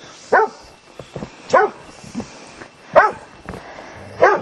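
A dog barking four times at a slow, even pace, about one bark every second and a half.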